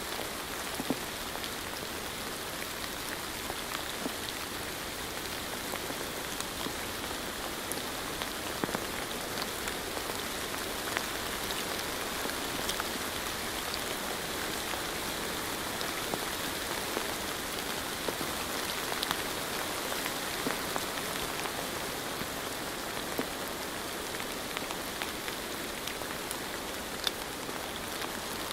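Steady rain falling, an even hiss of rain with scattered distinct drop ticks.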